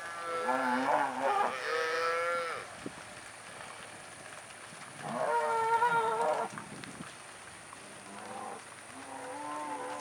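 Cattle mooing: a long moo of over two seconds at the start, another about five seconds in, then fainter, shorter moos near the end.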